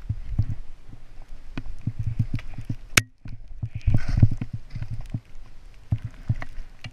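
Skiing fast through deep powder on an action camera: wind buffets the microphone with an uneven low rumble and thumps, while the skis hiss through the snow, loudest in a spray of hiss about four seconds in. A sharp click and a brief dropout come about three seconds in.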